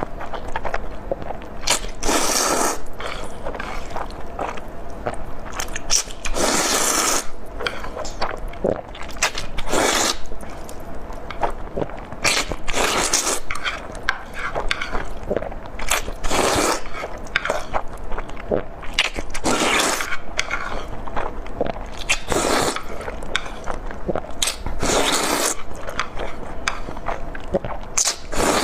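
Close-up eating sounds: a person biting into and chewing red-braised chicken legs, a wet crunchy burst every one to three seconds.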